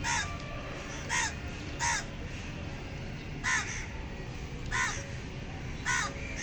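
A crow cawing: six short calls, roughly a second apart.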